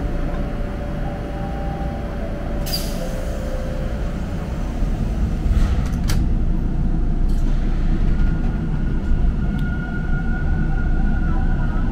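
Inside a TTC Line 2 subway car (Bombardier T1) standing at a platform: a steady low rumble of the car's equipment, a short hiss about three seconds in and a click near six seconds. From about eight seconds a thin steady whine comes in as the train begins to pull away.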